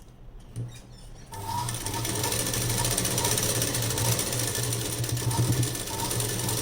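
Sewing machine starting up about a second in and then running steadily, stitching.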